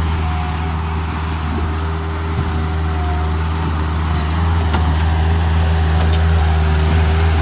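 Bobcat 753 skid steer's diesel engine running steadily.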